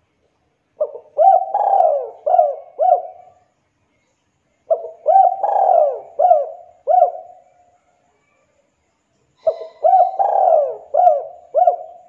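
Spotted dove (tekukur) cooing: three phrases of about five coos each, a few seconds apart.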